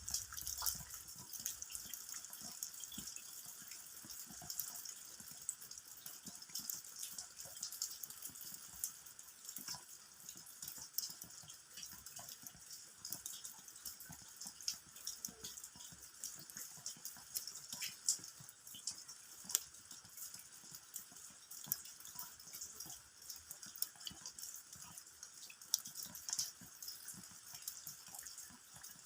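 Rain falling, with many irregular drops striking the ground over a steady hiss.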